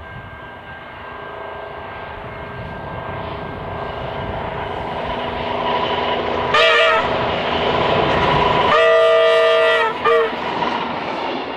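Victorian Railways diesel-electric rail motor 58RM approaching and passing. The rumble of its diesel engine and wheels grows steadily louder. Its multi-note horn gives a short blast a little past halfway, then a longer blast and a brief final toot near the end.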